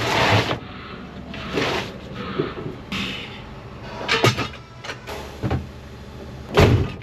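Tools and a steel trolley jack being packed into the back of a van: a short rush of noise at the very start, then irregular clunks and knocks, the loudest near the end.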